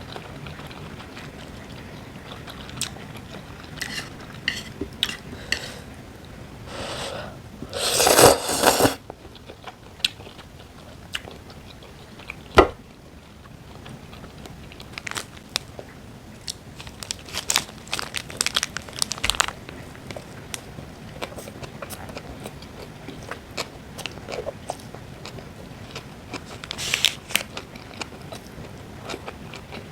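A person eating: repeated bites, crunching and chewing, the loudest crunching about eight seconds in, with a sharp click near the middle and a run of small clicks after it.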